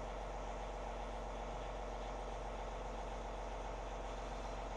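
A John Deere tractor's engine idling steadily.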